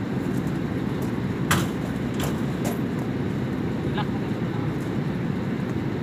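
Steady low rumble of rooftop HVAC equipment, with a few sharp metallic clicks and knocks from the sheet-metal duct access panel being handled. The loudest knock comes about a second and a half in.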